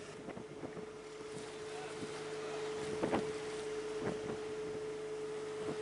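Hallberg-Rassy 36 sailboat under way in a choppy sea: a steady rush of wind and water with a few knocks and splashes against the hull, the loudest about three seconds in, over a steady hum.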